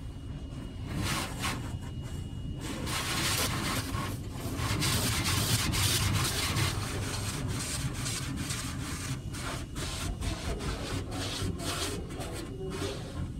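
High-pressure water jets of a Washworld Razor touchless car wash spraying against the windshield and body, heard from inside the car. The spray is loudest a few seconds in as the jets pass close over the glass.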